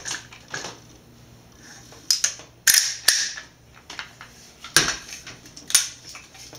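About half a dozen sharp metallic clicks and clacks from an AR-15 rifle being reassembled by hand: the upper receiver is swung shut onto the lower and the rear takedown pin is pushed home. The loudest snaps come a little under three seconds in and again near five seconds.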